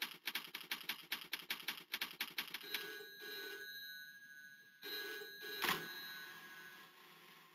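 Typewriter keys clacking quickly, about eight strokes a second, then a telephone bell rings twice. A sharp knock comes partway through the second, longer ring, which then fades out.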